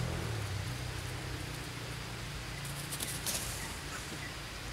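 Steady outdoor background noise with a low hum that fades in the first second, and a brief faint crackle of rustling about three seconds in.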